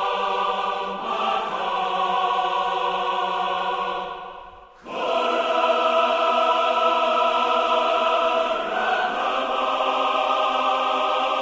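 Background music of sustained choir-like chords, each held for several seconds; it fades down about four seconds in, then a new chord swells in and holds.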